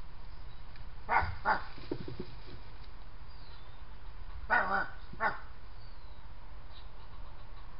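Five short, sharp barks in two bunches: two about a second in, then three more about four and a half seconds in.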